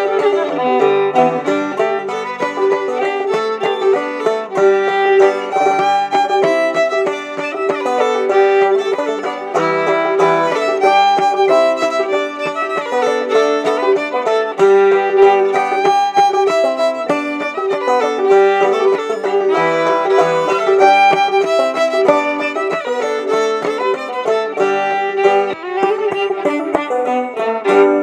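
Fiddle and clawhammer banjo playing an old-time fiddle tune together at a lively steady pace. The tune reaches its last note at the very end.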